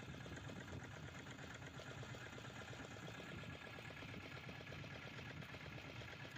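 Small fishing boat's engine idling, faint and steady with a fast, even pulse.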